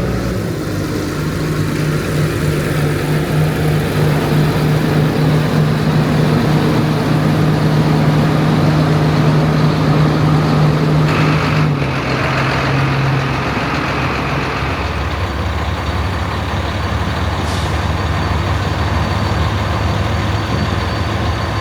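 Truck engine running steadily under way. Its pitch drops about halfway through, with a short hiss around the middle.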